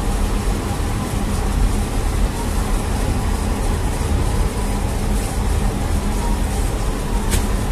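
Steady low rumble of a bakery's bread oven and machinery running, with a short click about seven seconds in.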